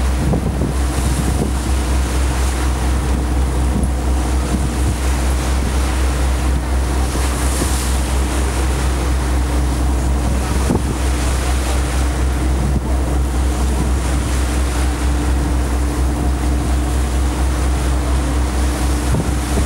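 Boat engine running steadily with a constant low drone, under the rush of water along the hull and wind buffeting the microphone.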